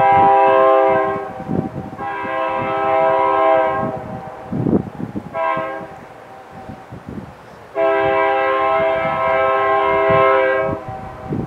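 A BNSF diesel locomotive's multi-chime air horn sounding four blasts, long, long, short, long: the grade-crossing signal pattern. The locomotives' engines rumble underneath.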